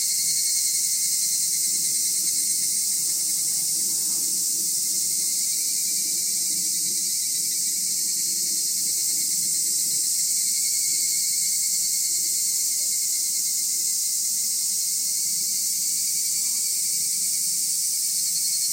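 Chorus of many insects singing, a steady, dense high-pitched trilling, with a lower trill that fades in and out.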